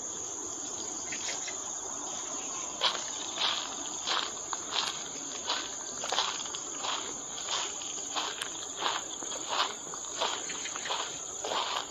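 A steady, high-pitched insect chorus, joined about three seconds in by footsteps walking at a steady pace, roughly one and a half steps a second; the footsteps are the loudest sound.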